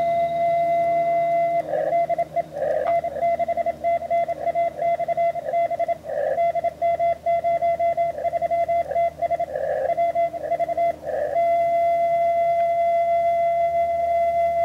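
A 10 GHz amateur radio beacon received through a transverter and RTL-SDR dongle, heard as a steady Morse tone at about 700 Hz. About two seconds in, the tone breaks into keyed Morse code for about ten seconds, then goes back to an unbroken carrier tone.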